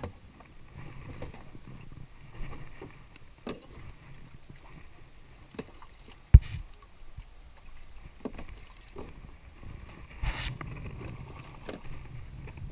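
Scattered knocks and thuds of fish and gear being handled on a wooden boat's deck, over a low steady rumble, with one sharp heavy thump about halfway through.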